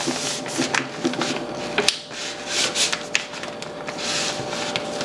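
Hands rubbing and sliding a coffee bag over stacked cardboard sheets: an uneven papery scraping that swells and fades, with a few light taps.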